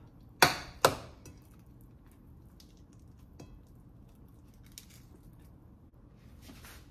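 Plate-side handling of a crispy rice-paper omelette: two sharp clicks within the first second, then faint scattered ticks and soft rustling as a cut half is picked up.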